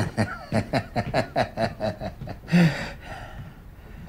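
A man laughing: a quick run of short chuckles, several a second, for about two seconds, then one louder, breathy burst of laughter.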